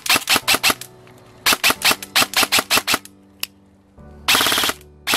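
Specna Arms SA-E03 Edge 2.0 electric airsoft rifle (AEG) firing in quick strings of sharp shots, about six and then about ten, then a single shot. Near the end it fires a longer burst in which the shots run together into a continuous buzz.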